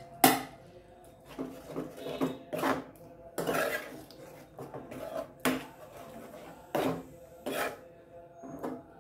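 Steel spoon scraping and knocking against a metal frying pan while stirring thick masala gravy: a sharp clank just after the start, then a short scrape every second or so at an uneven pace.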